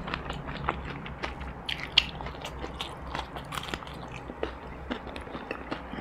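Crunchy battered fried chicken being bitten and chewed close to a clip-on microphone: a run of crisp crunches and mouth sounds, the loudest crunch about two seconds in.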